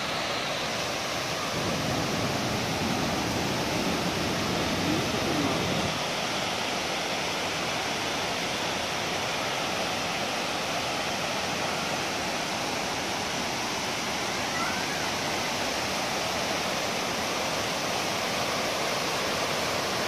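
Düden Waterfall and the river below it: a steady, even rush of falling and flowing water.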